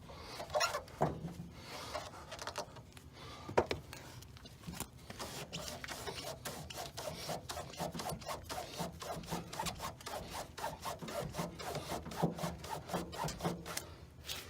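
Cloth being worked back and forth through a metal Jeep door hinge on a screwdriver, a rhythmic rubbing at about three strokes a second from about five seconds in. A sharp knock about three and a half seconds in.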